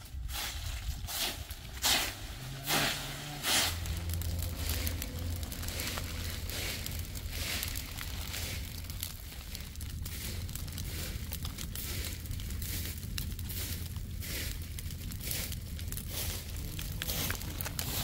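Pile of dry autumn leaves burning, crackling with many small snaps over a low steady rumble. In the first few seconds a hand broom sweeps through dry leaves in about five loud swishes.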